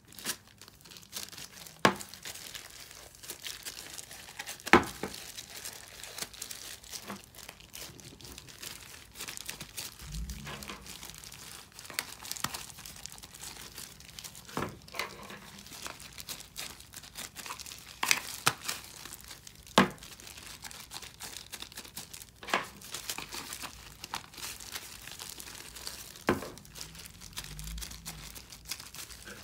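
Crinkling of clear disposable plastic gloves as hands work butter slime into small plastic containers, with a sharp click or tap of the plastic containers and lids every few seconds and a couple of soft thumps.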